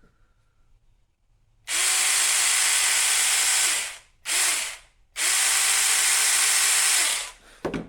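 Saker 4-inch battery-powered mini chainsaw running at full speed: two trigger pulls of about two seconds each with a short blip between them, the motor and chain whining up and down in pitch on the blip.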